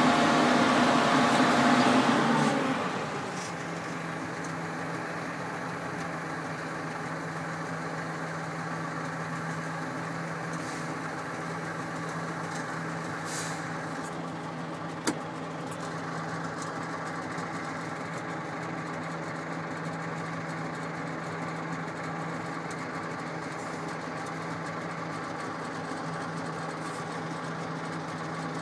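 Articulated dump truck's diesel engine heard from inside the cab: working loudly under load for the first couple of seconds, then dropping to a steady idle. One sharp click about fifteen seconds in.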